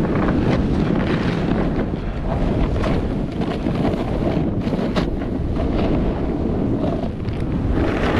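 Wind buffeting the microphone during a fast snowboard descent: a steady low rumble. Under it, the board hisses and scrapes through powder snow, with a few sharper scrapes about three and five seconds in.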